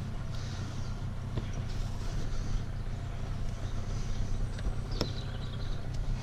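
Mercury 25 two-stroke petrol outboard idling steadily, choke in and fast-idle lever down. A single sharp click about five seconds in.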